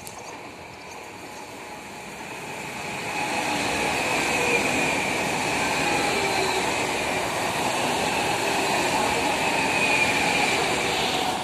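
A train passing through on the main line: the rush of wheels on rails builds over the first few seconds, holds loud and steady, and begins to fade right at the end.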